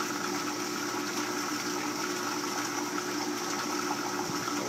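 Water running steadily through a crab shedding tank, with the constant hum of its circulating pump.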